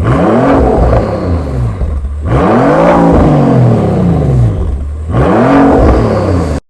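Rolls-Royce engine being revved, three rises and falls in pitch, ending abruptly near the end.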